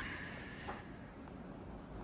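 Faint room tone: a steady low background noise, with one small tick about two-thirds of a second in.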